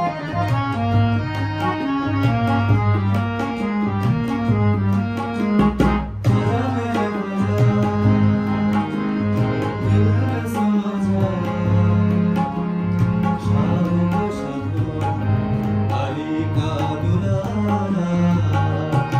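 Harmonium and tabla playing together: sustained reedy harmonium chords and melody over a steady tabla rhythm with deep bass-drum strokes, and one sharp stroke about six seconds in.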